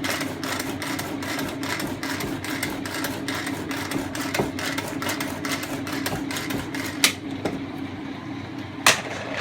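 Spoon stirring dry cake mix and melted butter in a plastic pressure-cooker pot: quick, rhythmic scraping for most of the time, then two sharp taps near the end.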